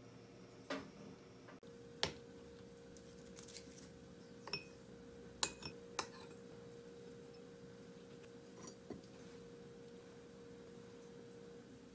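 Light clinks and taps of a metal fork and tongs against small ceramic side-dish bowls as banchan is served out, a handful of separate clicks, over a faint steady hum.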